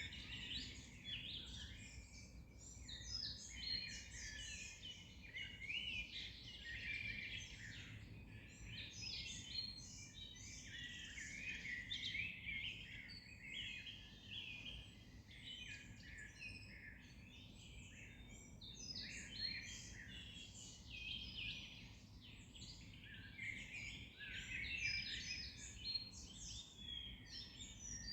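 A chorus of many songbirds singing at once, dense overlapping chirps and trills without a break, over a faint low background rumble.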